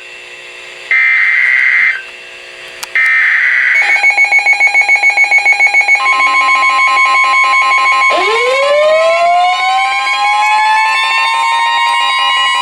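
Emergency Alert System header data bursts, two short screeching blasts about a second apart. Alert tones follow: pulsing at first, then steady. About halfway through, a siren winds up, rising in pitch toward a steady wail over the tones.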